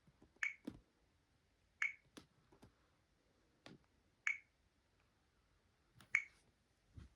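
Sharp clicks or taps: four louder ones spaced about one and a half to two seconds apart, with fainter clicks between them.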